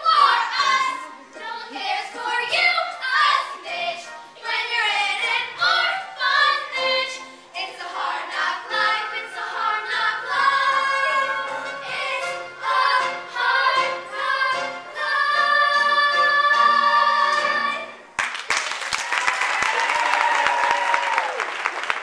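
A group of girls singing a show tune in chorus with musical accompaniment, ending on a long held final note. The song cuts off about 18 seconds in and the audience breaks into applause.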